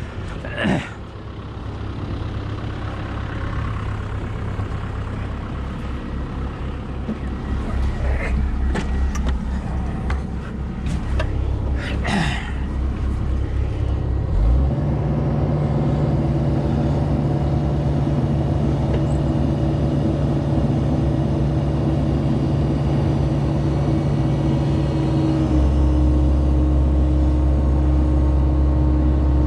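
A heavy diesel engine running steadily, its pitch and loudness stepping up about halfway through and again near the end, with a few metallic clanks in between.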